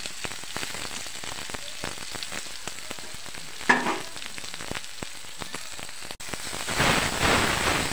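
Curry leaves, garlic, cumin and green chilli sizzling and crackling in hot oil in a kadhai, the tempering (tadka) for dal. There is one sharp click about halfway through, and the sizzle swells louder near the end.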